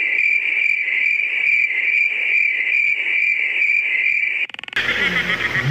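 Cricket-chirping sound effect, a steady high trill pulsing about two to three times a second, that cuts off about four and a half seconds in. It is the stock "crickets" gag for an awkward, unanswered silence.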